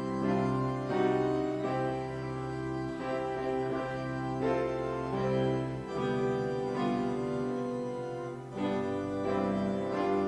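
Organ music: slow, held chords over sustained bass notes, the chords changing every second or two.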